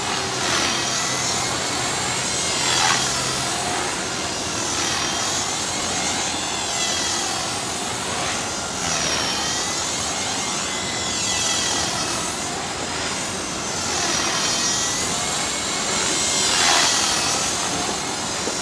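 Skyartec Mosquito electric micro RC helicopter flying: a steady rushing whir of the rotor with a thin, steady high whine from the motor, the sound sweeping hollowly up and down again and again as the helicopter moves about.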